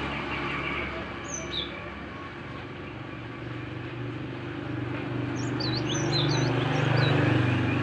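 A young glatik chirping: a couple of short high chirps about a second and a half in, then a quick run of chirps a little past the middle, over a steady low hum.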